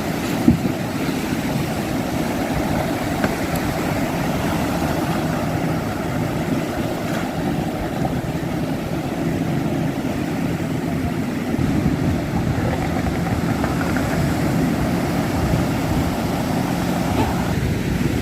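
A boat's motor running steadily with an even drone. There is a single sharp click about half a second in, and the drone gets a little louder near two-thirds of the way through.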